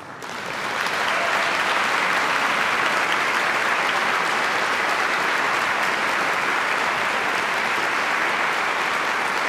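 Concert audience applauding at the end of a live string quartet performance. The applause swells over the first second, then holds steady.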